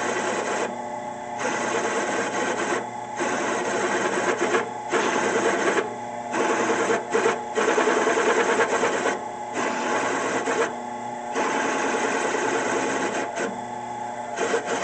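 Drill press running with a steady motor hum, and a harsh metal-cutting noise from the bit in steel pipe that breaks off briefly every second or two.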